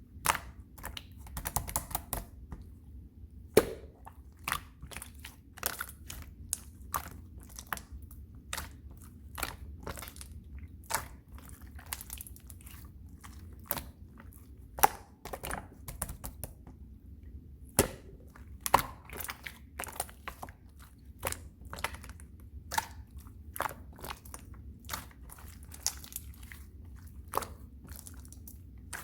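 Clear slime being worked by hand, giving sticky clicks and small popping squelches at an irregular one or two a second.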